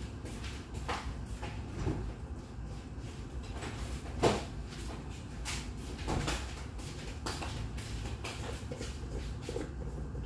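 Kitchen background: a steady low hum with scattered light knocks and clicks, the loudest about four seconds in.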